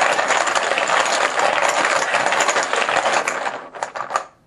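Poker chips rattling as they are shaken and mixed in a container, a dense clattering that slows into a few separate clicks near the end as the shaking stops and a chip is drawn.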